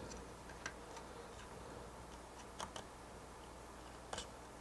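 Faint, scattered light clicks and taps from the spring-loaded Threadripper CPU socket frame being handled: one click under a second in, a quick pair a little past halfway, and another pair near the end.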